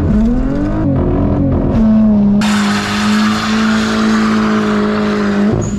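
Car engine revving up and down, then held at steady high revs for about three seconds while a loud rushing hiss joins in. The sound drops away just before the end.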